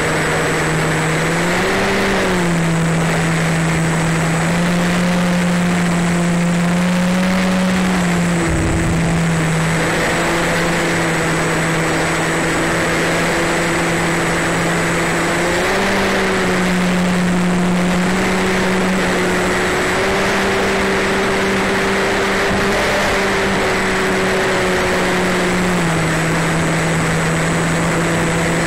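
Small electric RC biplane's motor and propeller humming steadily in flight, heard from a camera on the airframe, with wind rushing over it. The pitch steps up and down a few times as the throttle changes.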